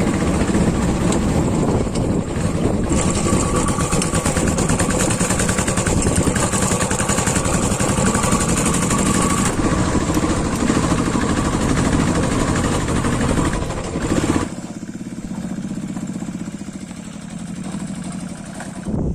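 Royal Enfield 500cc single-cylinder motorcycle engine running under way on a rough dirt track. About three-quarters of the way through it drops suddenly to a quieter, lower, steadier note as the bike eases off.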